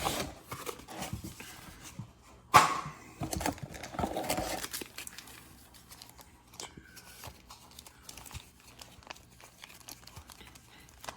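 Cardboard Elite Trainer Box and its contents being handled: rustling, scraping and small taps. There is a sharp knock about two and a half seconds in, a longer rustle just after, then quieter scattered clicks.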